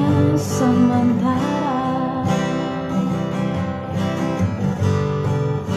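Indonesian spiritual song: a voice sings a drawn-out line over strummed acoustic guitar. The voice stops a little over two seconds in and the guitar plays on alone.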